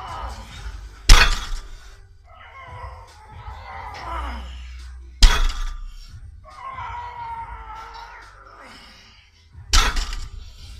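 A 200 kg barbell loaded with weight plates set down hard on the gym floor three times, about four seconds apart, each a loud bang with a short metallic ring, marking the end of each deadlift rep. Between the bangs the lifter lets out a long straining yell during each pull.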